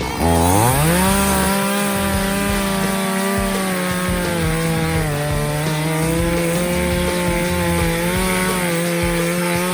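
Two-stroke chainsaw revving up to full throttle in the first second, then running steadily at high speed. Its pitch sags slightly about halfway through, as when the chain bears into wood while cutting the log.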